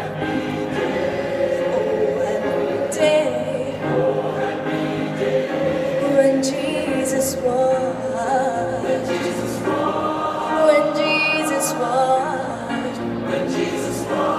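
A choir of students singing, several voices together holding long notes.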